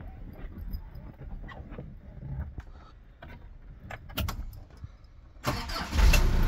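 Light clicks and knocks, then about five and a half seconds in the 1992 Isuzu Elf's 4BE1 3.6-litre four-cylinder diesel cranks briefly and catches, running steadily near the end.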